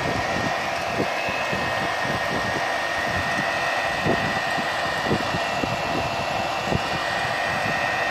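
Electric irrigation pump set running steadily: an even whirr with a faint high whine, and a few light knocks.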